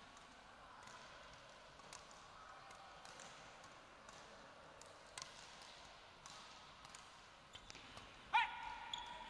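Badminton doubles play on an indoor court: faint scattered taps of rackets on the shuttlecock and players' footsteps. Near the end comes one loud, sharp squeak of court shoes on the floor.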